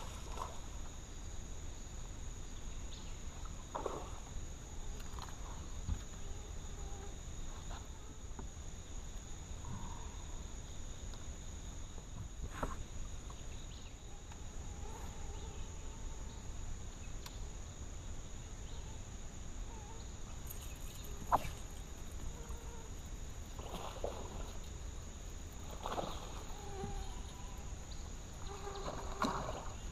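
Swamp insects trilling steadily at a high pitch, with scattered clicks and knocks from fishing tackle as a rod is cast and worked, the sharpest about twenty-one seconds in.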